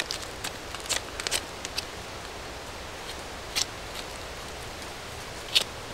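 Knife blade shaving a small piece of wood by hand, a few short sharp scrapes spaced irregularly. Under it is a steady background hiss, the distant noise of settlements that carries even into the woods.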